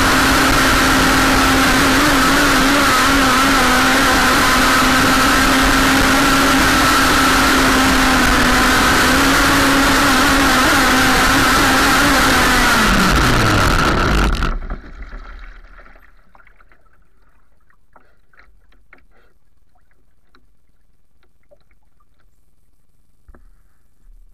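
Radio-controlled jersey skiff's motor running steadily at speed, heard from on board with water rushing past the hull. About 13 seconds in its pitch falls and it cuts off, leaving only faint water sounds and small ticks as the boat coasts.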